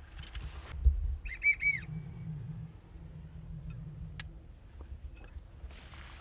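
American wigeon whistle: three short whistled notes, each rising and falling, about a second and a half in. Just before them comes a low thump, the loudest sound, with some brushing rustle at the start and again near the end.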